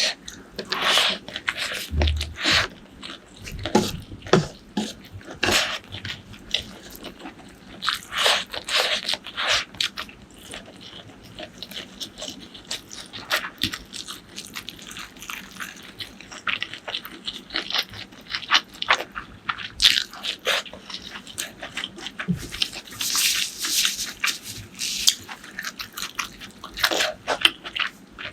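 Close-miked eating: crunchy bites and chewing, with irregular clusters of sharp mouth clicks and crunches, sparser for a while mid-way.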